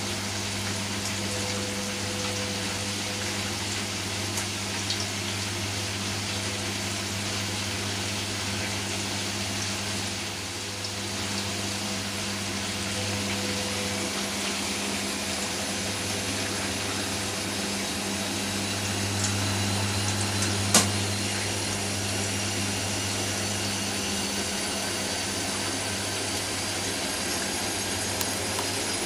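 Hoover Nextra front-loading washing machine going from tumbling into a spin: the motor and drum hum steadily, and a faint whine rises slowly as the drum gathers speed. A single sharp click about two-thirds of the way through.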